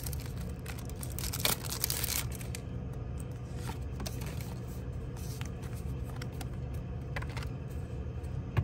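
Foil Pokémon booster pack crinkling and tearing as the cards are pulled out, for about the first two seconds. Then the stack of cards quietly sliding and flicking as it is shuffled through, with a few light clicks and a card laid down.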